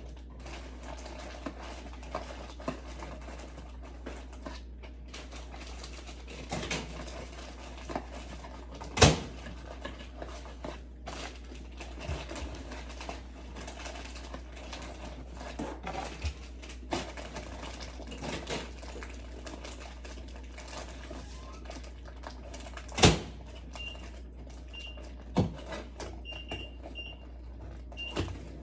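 Small scattered clicks and taps of injection supplies being handled (vials, syringe caps), with two sharp knocks, one about a third of the way in and one near the three-quarter mark. A steady low hum runs underneath, and a few short high chirps come near the end.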